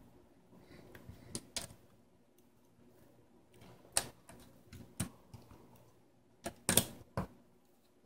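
Sharp clicks and light taps at irregular intervals as a replacement DC jack and its cable are pressed and fitted into a laptop's plastic base. A quick cluster of louder clicks comes near the end.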